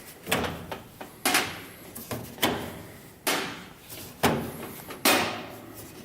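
Range control knobs being pulled off their stems one after another: about seven short scraping clicks, roughly one a second.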